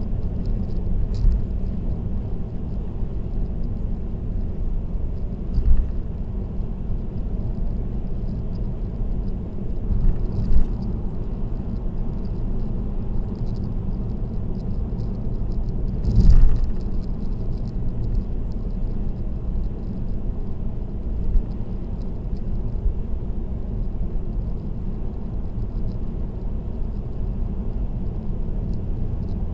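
Car driving at expressway speed: a steady low rumble of road and tyre noise, with a few brief bumps, the loudest about 16 seconds in.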